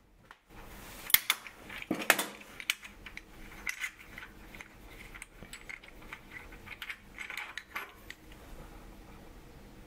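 Small brass clock-wheel parts clicking and clinking as they are worked off the lathe arbor by hand and pulled apart. A cluster of sharp clicks comes in the first two seconds or so, followed by lighter, irregular clinks.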